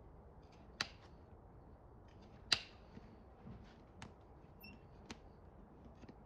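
A metal hoof pick scraping the sole and clicking against the horseshoe and hoof. There are two sharp clicks, about a second in and near the middle, then a few lighter ticks over quiet scraping.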